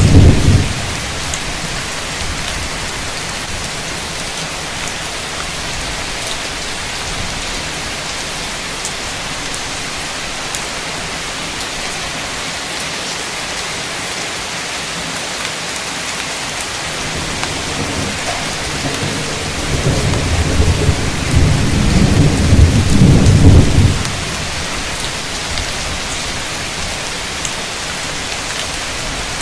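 Heavy rain falling steadily in a constant hiss. A roll of thunder fades out right at the start, and another deep rumble of thunder builds about two-thirds of the way in and cuts off suddenly a few seconds later.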